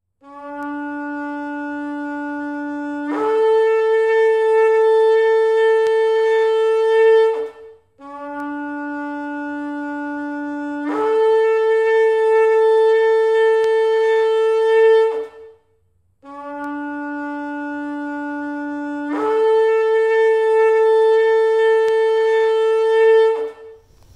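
Shofar, a long spiral horn, blown in three long blasts. Each blast starts on a low note for about three seconds, jumps up to a higher note held for about four seconds, then cuts off.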